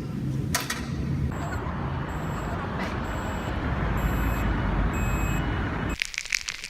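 Low rumble of a vehicle under a wash of noise, coming in about a second in, swelling through the middle and cutting off sharply near the end, where a brief crackling sound takes over.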